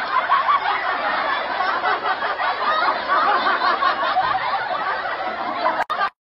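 Many people laughing together, a dense crowd or canned laugh-track laughter that cuts off abruptly near the end.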